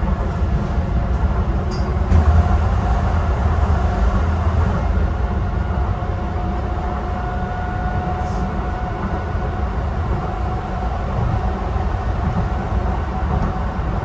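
Docklands Light Railway train running along the track, heard from inside the carriage: a steady low rumble of wheels on rail with a faint steady whine over it.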